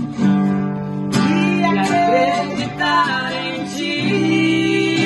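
Acoustic guitar strummed as accompaniment to a woman singing a worship song.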